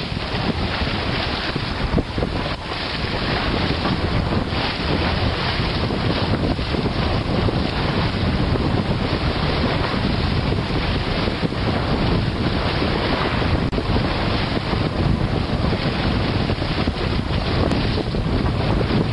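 Wind buffeting the microphone and water rushing along the hull of a sailboat under way in a stiff breeze, a steady loud noise.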